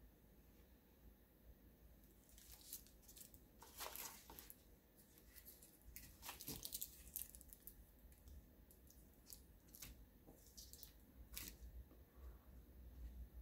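Faint crinkling and rustling of plastic-wrapped crab sticks being handled and set down, in a few short spells with quiet between.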